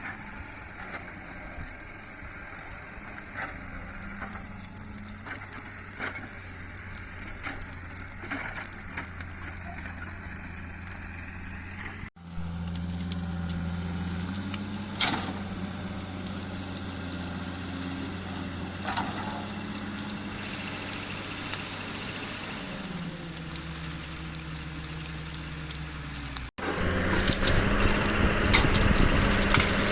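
Excavator diesel engine running, its pitch stepping up and down as the hydraulics take load, with scattered sharp cracks over it. The sound changes abruptly twice, about 12 and 26 seconds in, and the last part is louder.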